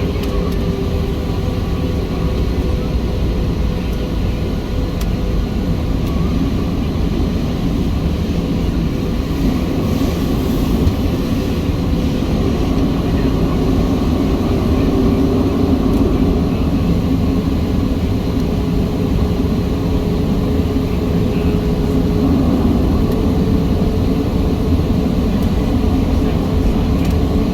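Inside the cabin of a Boeing 737-700 taxiing: its CFM56-7B engines running at low taxi power under steady rolling noise, with a faint even hum.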